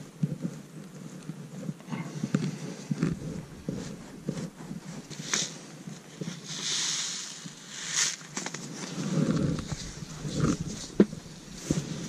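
Close handling noise: jacket sleeves rustling and hands working in loose soil, with light knocks and clicks. About six and a half seconds in, a paper seed packet rustles briefly as seeds are shaken out into a palm.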